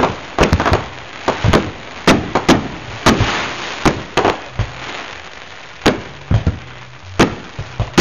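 Consumer aerial fireworks going off: an irregular run of loud bangs as shells launch and burst, about a dozen in eight seconds, with a stretch of hissing crackle around the middle.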